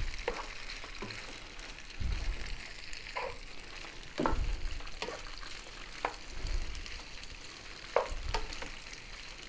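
Boiled penne frying in butter and oil in a pan, sizzling steadily, while a wooden spoon stirs it with irregular scrapes and knocks against the pan.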